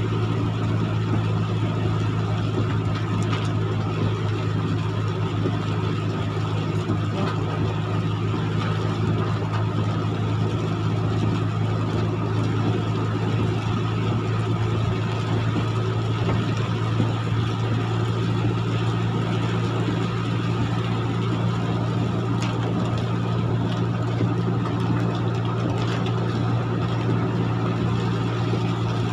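Steady low drone of a Hino 300 truck's diesel engine heard inside the cab while cruising, over an even hiss of rain and tyres on the wet road.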